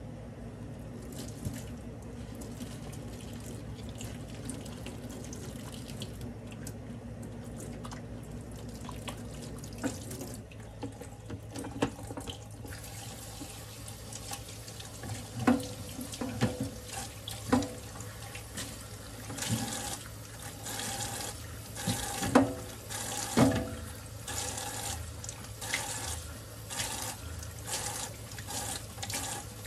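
Kitchen faucet running a thin steady stream into a stainless steel sink. From about ten seconds in, the water splashes over hands rinsing dishes, with scattered clinks and knocks as the items are handled against the sink and rack.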